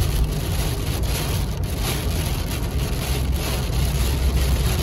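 Rain hitting a car's windshield, heard from inside the cabin over the car's steady low rumble.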